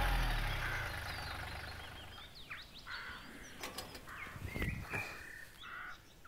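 Kubota L3200 compact tractor's diesel engine running, then dying away within the first second or two. After it, birds chirp and whistle, with two sharp knocks near the middle.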